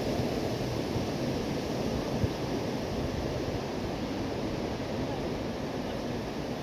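Steady wash of sea surf with wind blowing across the microphone, and a brief low thump about two seconds in.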